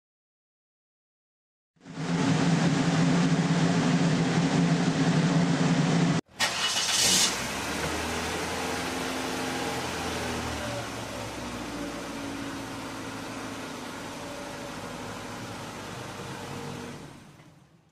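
Car engine sound effect: an engine running loud and steady for about four seconds after a silent start, breaking off suddenly. After a short high, hissing burst, a second engine stretch runs steadily and fades out near the end.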